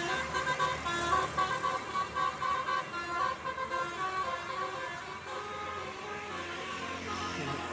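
Bus telolet horn of the Basuri type playing a quick multi-note tune, the pitch stepping between notes several times a second. After about five seconds it dies down, leaving a quieter steady vehicle sound.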